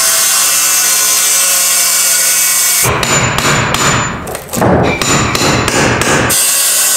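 A circular saw runs steadily for about three seconds. Then comes a quick run of about ten hammer blows, roughly three a second, on a hand tool set against old wooden subflooring as it is cut back flush with the floor joists.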